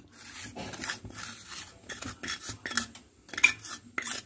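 Wooden spatula stirring and scraping powdered sugar and ground almond paste around a non-stick pan: a run of quick scraping strokes, with a couple of sharper knocks against the pan near the end.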